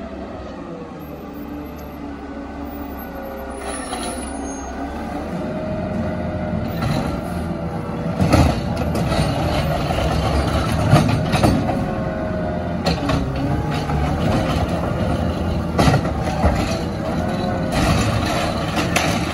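CNG Peterbilt 520 garbage truck with a McNeilus ZR automated side loader running close by. It gets louder from about five seconds in, and its whine wavers up and down. Several short, sharp noises break in over it.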